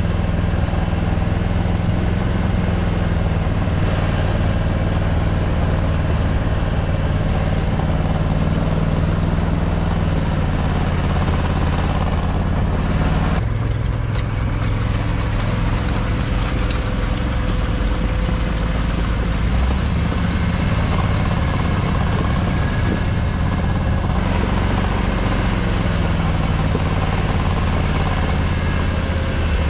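Engine of an Argo Aurora 8x8 amphibious ATV on half tracks running steadily as the machine drives. The engine note changes a little before halfway and again about four-fifths in.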